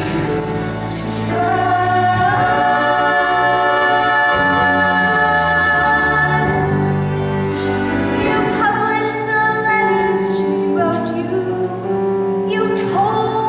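A small vocal group, mostly female voices, singing long held notes in harmony.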